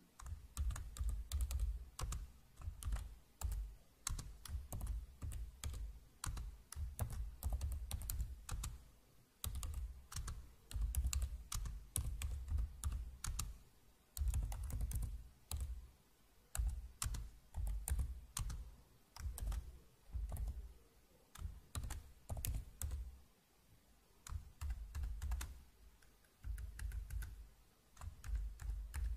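Typing on a Mac keyboard: rapid key clicks in bursts of a second or two, with short pauses between bursts.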